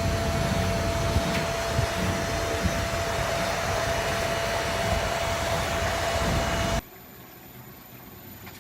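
Machinery running: loud, steady noise with a rumble and a steady mid-pitched whine. About seven seconds in it cuts off abruptly to a much quieter steady hum with a faint high whine.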